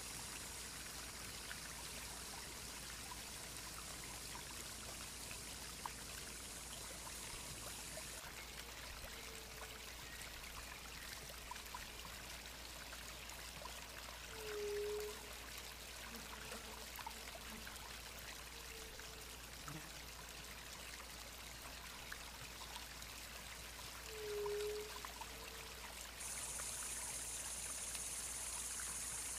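Steady trickling and running water of a stream. A few short low hoots sound over it, the loudest about halfway through and again near the end. A high steady hiss is heard at the start and in the last few seconds.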